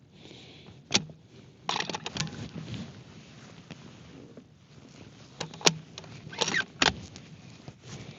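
Sharp metallic clicks and short rattles of a Ruger Precision Rifle being handled between shots, as in working the bolt: a single click about a second in, a cluster of rattles around two seconds, and more clicks and rattles between five and a half and seven seconds.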